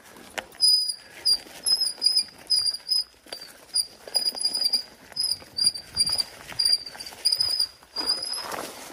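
Mountain bike disc brakes with metal brake pads squealing: a string of short, high-pitched squeals, about two a second, as the brakes are applied again and again on the trail. The metal pads are what make them squeal so much.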